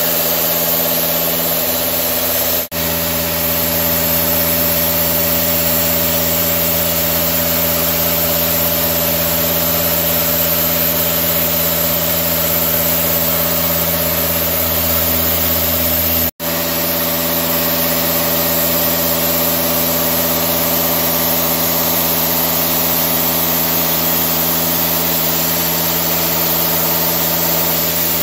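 CNC vertical turning lathe running: a steady machine hum of several even tones, cutting out for an instant twice.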